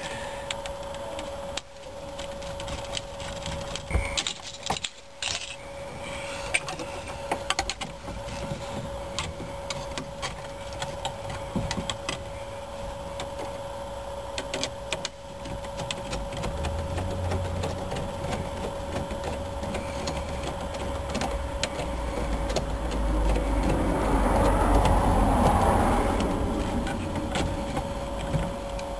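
Worm-drive hose clamp being fitted and tightened with a screwdriver around a car's steering column: scattered light clicks and scrapes over a faint steady hum. From about halfway a passing vehicle's low rumble builds, loudest a few seconds before the end, then eases.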